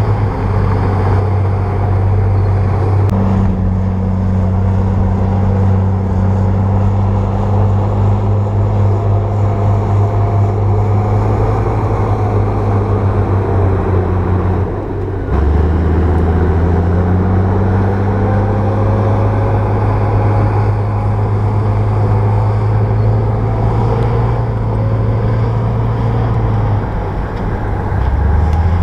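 Crawler bulldozer's diesel engine running steadily with a low drone. About halfway through, the sound dips for a moment and the engine note then drops lower and gets louder. It dips and drops briefly again near the end.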